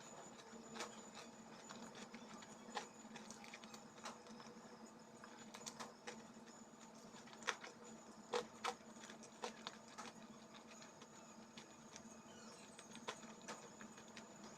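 Quiet eating sounds: chewing with irregular short, sharp mouth clicks and smacks, the loudest a few clicks about halfway through, over a faint steady hum.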